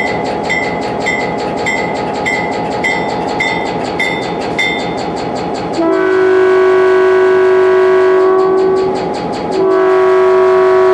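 Electric multiple-unit train running with a steady rumble and a regular high tick about every 0.6 s. About six seconds in, the train's horn sounds a long, steady chord, breaks off briefly about three seconds later, and sounds again.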